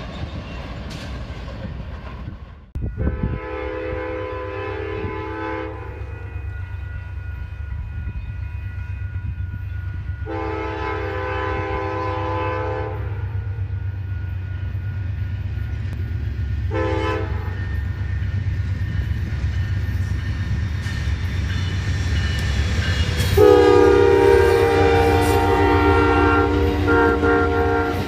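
Freight diesel locomotives rumbling past, then an approaching Amtrak passenger train's locomotive horn sounding a chord of several notes in the grade-crossing pattern: two long blasts, one short, then a last long one that is the loudest, held as the train arrives. A steady low diesel rumble and wheel noise run underneath.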